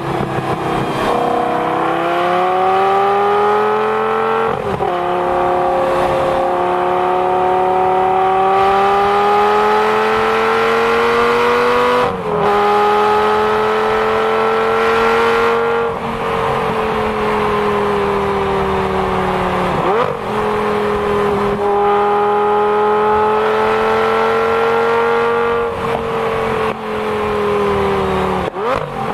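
2006 Lamborghini Gallardo's V10 engine through a Fabspeed aftermarket exhaust, heard while driving at highway speed: a steady, loud exhaust note whose pitch rises and falls gently, broken by a few brief dips.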